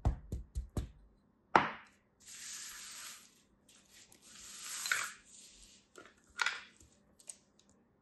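A wooden tamper thumps four times in quick succession into kinetic sand packed in a mold, followed by crunching and hissing as the packed sand is pressed, scraped and crumbled by hand.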